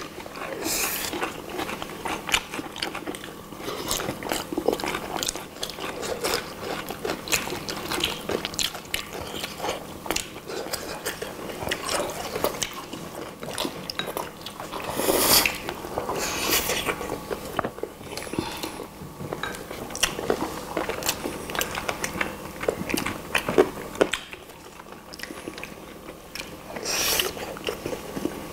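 Close-miked eating: several people biting into and chewing grilled chicken legs, a steady run of wet smacks and small clicks, with a few louder bites about halfway through and near the end.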